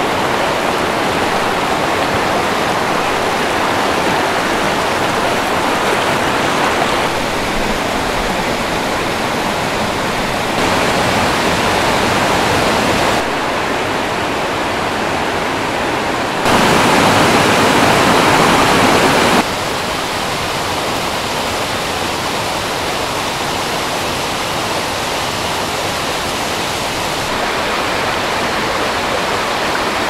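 Shallow river water rushing over a flat rock riverbed in rapids: a steady rush that shifts in level at several cuts between shots, loudest for about three seconds just past the middle.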